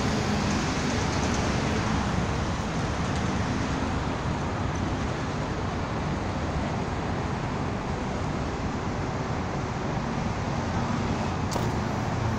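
Steady rumble and hiss of city traffic, with a single sharp click near the end.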